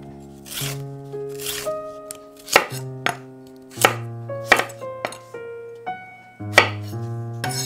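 Chef's knife dicing parsnip on a wooden chopping board: several sharp knocks of the blade meeting the board at uneven intervals, with softer slicing swishes between them. Soft piano music plays underneath.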